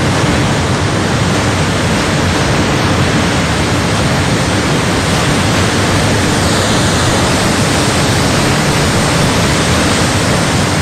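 Loud, steady roar of a muddy flash-flood torrent rushing down a hillside, an unbroken wash of water noise.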